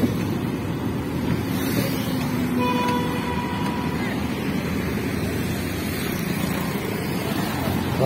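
Steady wind and road noise from riding a motorbike in traffic. About two and a half seconds in, a short steady tone sounds.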